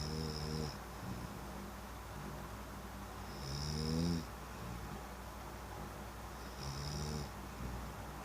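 A man snoring in his sleep: three drawn-out snores about three seconds apart, the middle one the longest and loudest and rising in pitch, each carrying a thin high whistle.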